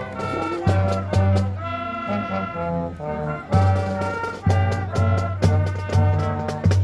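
Brass-led music, held horn notes over a heavy, steady drum beat about twice a second.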